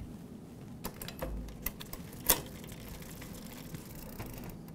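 Mountain bike drivetrain running as the pedals are turned by hand: the chain runs steadily over the rear cassette, with a few sharp clicks as the Shimano rear derailleur shifts it down two gears.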